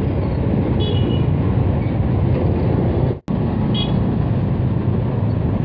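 Steady wind rush and road noise from riding a Honda Beat FI scooter, with its small engine running under it. The sound drops out for a split second about three seconds in, and a faint short high tone comes twice.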